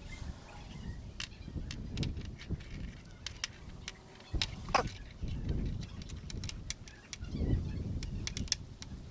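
Scattered light clicks and clinks of tools and small metal parts being handled, over a low, uneven rumble. There is a short falling squeak about five seconds in.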